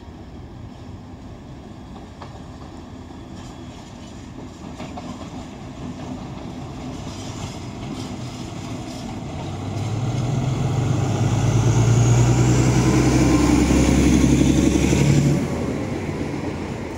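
Diesel shunting locomotive's engine running as it comes closer, with a low throb and a high whine growing louder from about ten seconds in. The sound is loudest as the locomotive passes close by, then drops off suddenly near the end.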